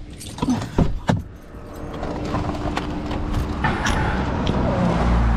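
A few sharp clicks and knocks in the first second or so, then a car running steadily, its hum building up about two seconds in.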